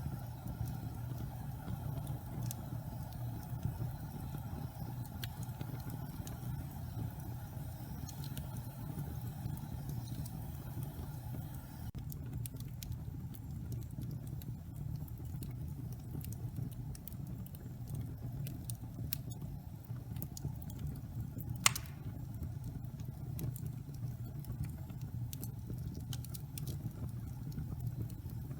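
Wood fire in a fireplace burning with a steady low rumble and scattered small crackles, and one sharp, loud pop about two-thirds of the way through.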